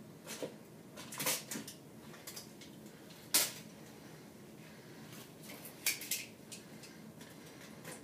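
Scattered knocks, clicks and light clatter of things being handled inside the cabinet under a kitchen sink, around the garbage disposal. The sharpest knock comes a little over three seconds in.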